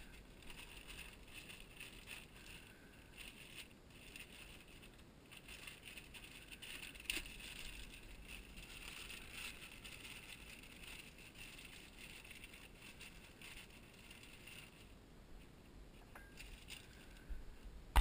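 Faint rustling of a plastic bag and small handling clicks as a replacement oil-line filter cartridge is unwrapped, with one sharper click about seven seconds in.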